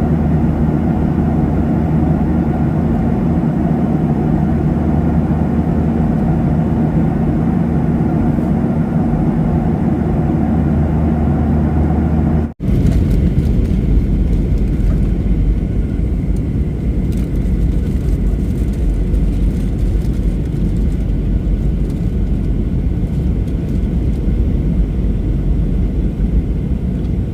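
Airliner cabin noise: a steady engine drone with a low hum, heard from inside the passenger cabin. About halfway through the sound breaks off and resumes as a deeper, rougher rumble.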